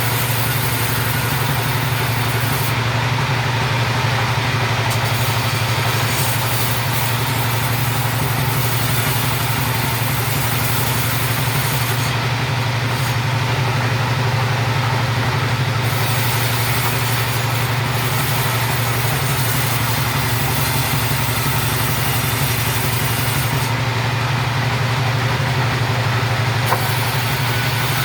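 Two-stroke chainsaw running steadily at an even speed, with no rise or fall in its note.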